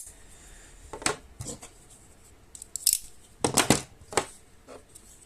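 Folding pocket knives being handled and shifted around: a series of sharp clicks, knocks and short scrapes, with a quick cluster of them about three and a half seconds in.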